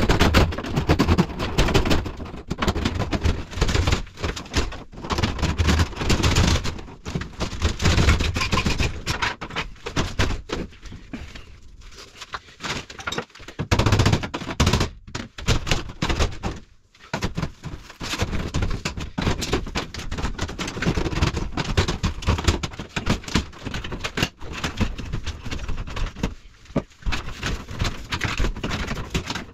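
Tiled shower wall and trim being smashed out: rapid, repeated knocks and cracking that go on almost without a break, with two short lulls partway through.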